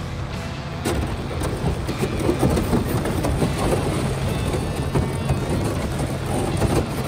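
Thin sheet ice cracking, crunching and scraping against a small boat's hull as it pushes through: a dense, irregular crackle that starts about a second in and keeps going.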